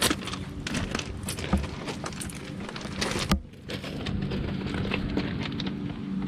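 Footsteps crunching on gravel, uneven and crackly, over a steady low hum.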